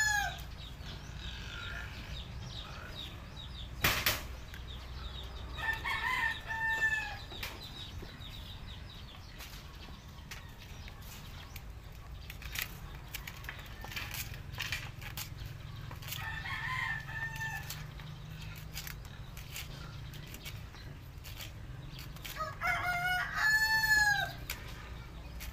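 A rooster crowing three times, the last crow near the end the loudest. Between the crows, a sharp knock about four seconds in and a run of short knife chops as vegetable stalks are cut on a banana leaf over a wooden table.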